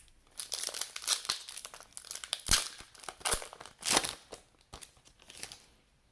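Foil wrapper of a basketball card pack being torn open and crinkled: a run of irregular crackles and rips, loudest about two and a half and four seconds in.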